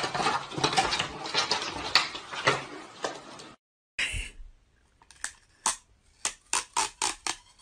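Clattering, scrabbling noise for about three and a half seconds. After a short break comes a run of about ten sharp clicks and taps over two and a half seconds, as a cat pokes at a desktop tape dispenser.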